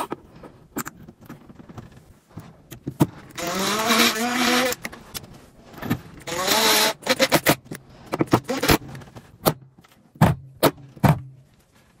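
Electric screwdriver running twice, for over a second and then for under a second, driving screws into the mounting plate of a metal concealed cabinet hinge; its whine rises in pitch as it first spins up. Then a run of sharp clicks and taps from the metal hinge being handled.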